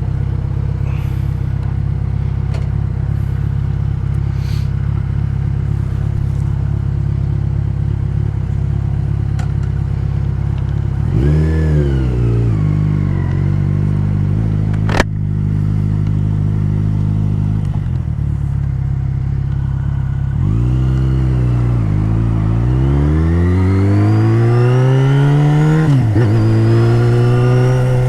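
Yamaha XJ6's 600cc inline-four engine running steadily, then rising and falling in pitch as the throttle opens and closes. There is one sharp click about halfway through. Near the end comes a long rising pull that drops briefly at a gear change, then holds at a higher pitch.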